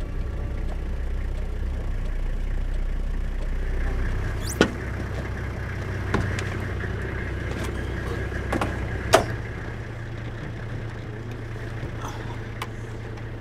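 Four-wheel-drive vehicle's engine running, a low rumble while driving for about four seconds, then a steady low hum with several sharp knocks and clunks of doors and gear inside the vehicle, the loudest about nine seconds in.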